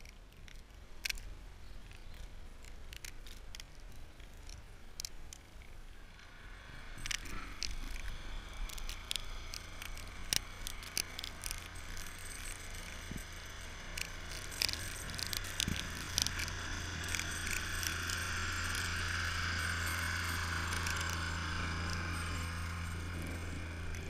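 Engine of a salt-spreader snowplow truck running as a steady low drone that grows louder as the truck draws close, over a hiss with many sharp ticks.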